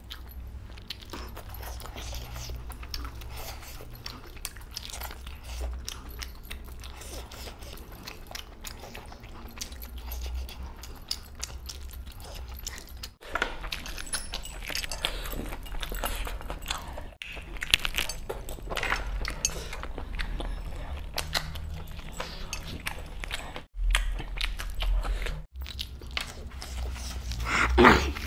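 Close-up mouth sounds of a man eating spicy mutton and chicken curry by hand: wet chewing, smacking and biting, with a few very brief gaps and a short louder noise near the end.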